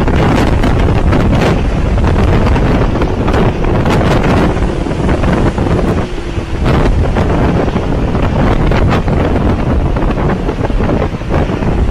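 Hurricane-force wind blowing hard against the microphone: a loud, unbroken rush of noise with repeated sharp gusts buffeting the mic.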